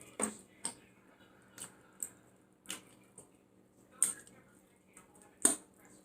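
Close-miked lip-smacking and chewing while eating: about seven sharp, wet clicks at irregular intervals, the loudest about five and a half seconds in.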